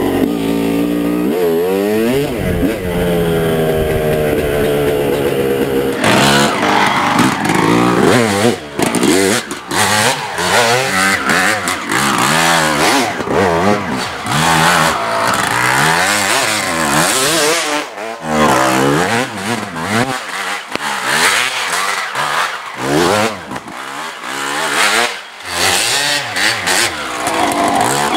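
Dirt bike engine revving up and down over and over as it is ridden over a rough woods trail. The sound changes abruptly about six seconds in.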